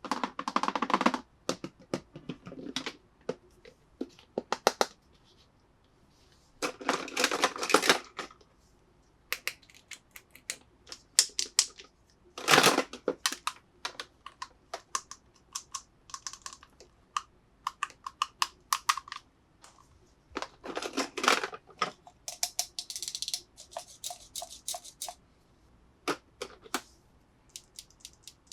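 Hands handling plastic toy pieces and packaging: irregular clicks and taps, with several short bursts of crinkling plastic.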